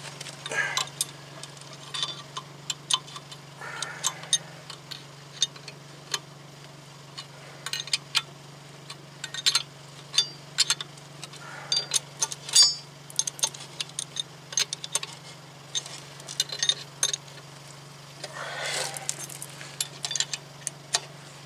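Scattered sharp metallic clicks and clinks of a hand wrench working the wheel bearing hub's mounting bolts as they are snugged down, over a steady low hum.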